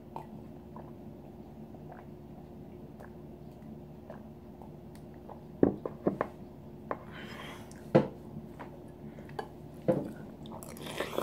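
Several sharp clinks and knocks of a drinking glass and a metal spoon against the table and bowl, over a steady low hum. Mouth sounds of eating come near the end.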